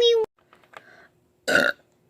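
A single short, loud burp about one and a half seconds in, just after a brief voiced sound is cut off at the start.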